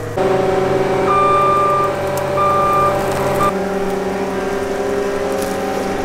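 Loader's engine running steadily while its reverse alarm beeps twice, then gives a short third blip about three and a half seconds in.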